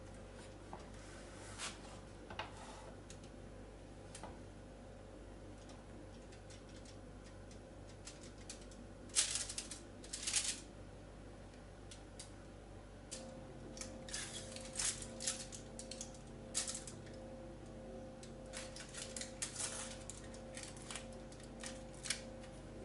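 Scattered light scrapes and clicks of a plastic spatula spreading whipped-cream frosting over a layered sponge cake on a foil-lined board. The loudest few come about nine and ten seconds in, and a run of quicker ones follows from about thirteen seconds.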